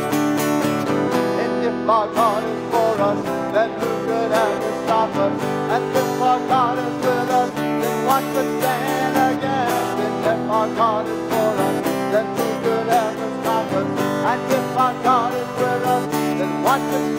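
Instrumental music led by strummed acoustic guitar, with a melody line above the chords that bends and wavers in pitch.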